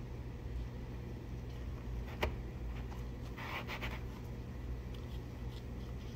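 Metal ring cutter pressed through the crisp edge of a stroopwafel on a wooden board: a sharp click about two seconds in and a short crackly crunch a little past halfway, over a steady low hum.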